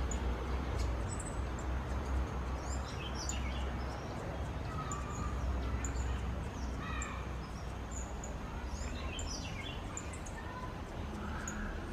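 Wild birds chirping and calling in short, scattered bursts, over a steady low rumble of background noise.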